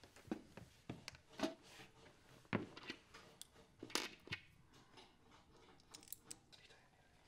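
Faint scattered clicks and light metallic taps of small hardware being handled: steel washers and screws picked up from a hard tabletop. The sharpest taps come about two and a half and four seconds in.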